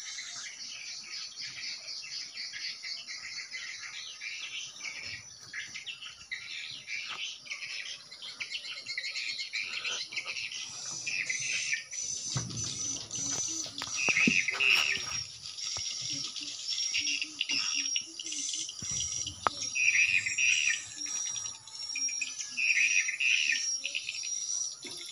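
Dense, high swiftlet chirping and twittering that goes on without a break, typical of the lure calls a swiftlet house plays from its tweeter speakers to draw edible-nest swiftlets. Louder clusters of chirps come in the second half, with a low rumble under them about halfway.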